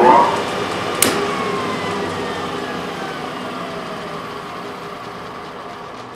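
Martin lathe's electric motor finishing its run-up to speed, then a sharp click about a second in as the emergency stop drops out the contactor, after which the motor and spindle drive coast down with a slowly falling whine that fades away.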